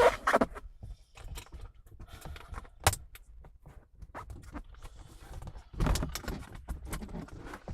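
Plastic clicks and rattles as the mirror switch panel is pried and unclipped from the car's center console trim, with one sharp snap about three seconds in and a cluster of knocks near six seconds.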